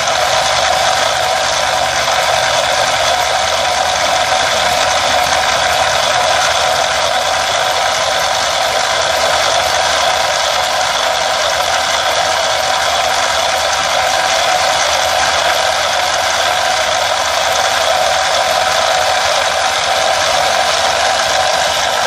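Homemade radio-controlled excavator's motors and gearing running as its arm and bucket dig soil. It is a loud, steady mechanical grinding that holds unbroken, mostly high rather than low in pitch.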